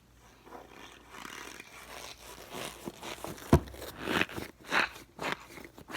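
Crunchy snowball stress ball being squeezed in the hand, giving irregular crunching, crackling sounds, with one sharp knock about three and a half seconds in.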